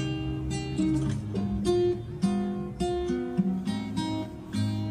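Background music: a plucked acoustic guitar melody, single notes struck a few times a second, each ringing and fading.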